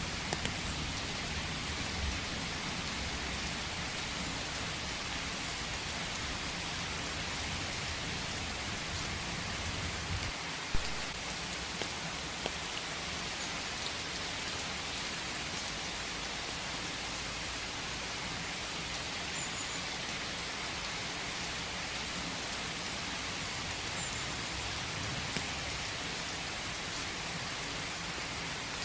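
Steady rain falling, with scattered individual drops ticking through it; one sharper tap stands out about eleven seconds in.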